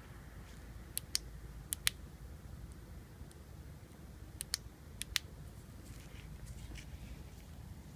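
A few sharp clicks, mostly in close pairs, from handling a 9-volt fuel-injector bench tester and its clip, over a steady low hum. No regular pulsing from the injector is heard: this injector is not firing, which marks it as dead.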